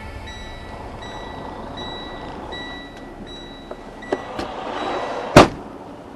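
A few light clicks, then one loud, heavy slam about five seconds in, as of a truck door being shut.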